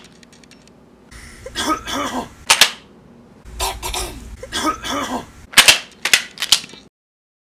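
A person coughing in a series of short bursts, some hoarse and voiced, several ending in sharp hacking coughs. The sound cuts off abruptly near the end.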